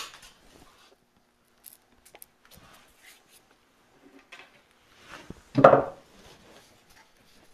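Hand tools being handled against a concrete block and workbench: an epoxy cartridge gun and a paint roller. There is a sharp click at the start, scattered small clicks and knocks, and a louder short clunk about five and a half seconds in.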